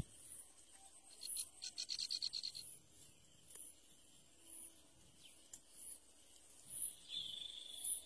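Faint outdoor bird and insect sounds: a rapid high trill of about ten sharp clicks a second lasting just over a second, over faint high ticks repeating about once a second. A high held whistle-like note near the end.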